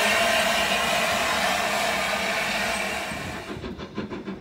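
LNER A4 Pacific steam locomotive 60009 blowing steam from its open cylinder drain cocks in a loud, steady hiss. About three and a half seconds in it gives way to a much quieter, faint rhythmic beat.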